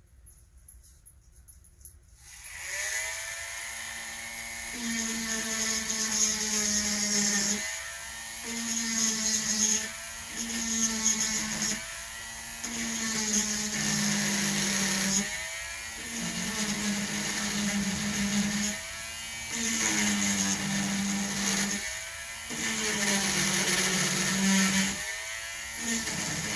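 A Dremel rotary tool starts about two seconds in and runs, drilling dry into a stone with a small bit. Its high whine and grinding hiss break off briefly every two to four seconds.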